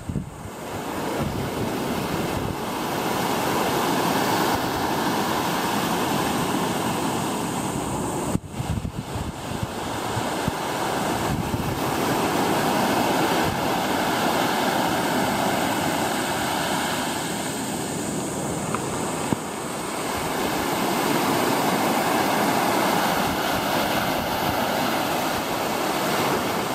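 Ocean surf: small waves breaking and washing up a sandy beach, the rush swelling and easing every several seconds.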